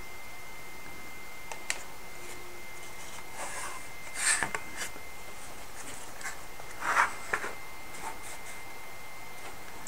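Light wooden scrapes, scuffs and taps as a wooden model boat hull is handled and turned on a cutting mat. There is a sharp tap about one and a half seconds in, and the loudest scuffs come around four and seven seconds in. A faint steady high whine sits underneath.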